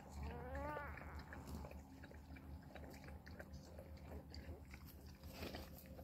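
Days-old puppy giving one short whimper, rising and falling in pitch, about half a second in; after it only faint small ticks and rustles.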